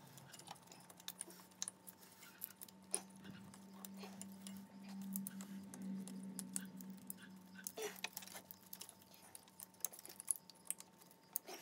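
Faint scattered clicks, taps and rustles of gloved hands handling wiring, connectors and parts around the coil packs in a car's engine bay. A low hum rises faintly for a few seconds in the middle.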